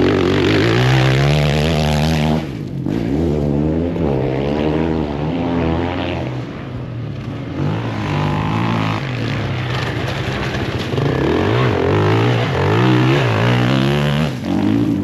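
Enduro dirt-bike engines revving, their pitch rising and falling again and again with the throttle, broken by two abrupt cuts between clips.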